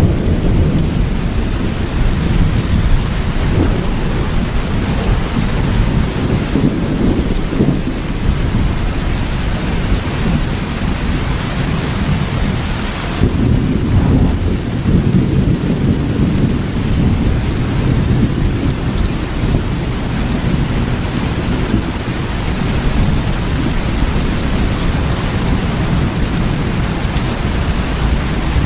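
Steady rain with a deep, continuous thunder rumble beneath it; the rumble swells for a few seconds about halfway through.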